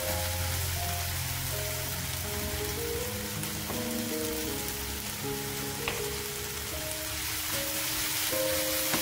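Food sizzling as it stir-fries in a hot wok: cabbage and onion in chili-paste sauce, with octopus, chilli peppers and green onion added and stirred with a wooden spatula, a few light clicks of the spatula among the steady frying hiss.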